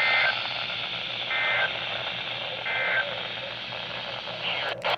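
Three short warbling data bursts of an Emergency Alert System SAME signal, about 1.3 seconds apart: the end-of-message code that closes an alert. They play over steady radio hiss, and a few sharp clicks come near the end as the audio cuts off.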